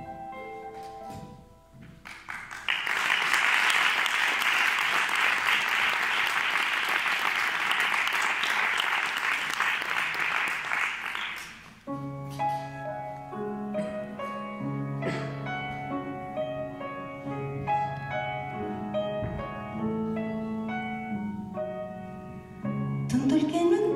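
An audience applauds for about nine seconds. Then a grand piano starts a slow introduction.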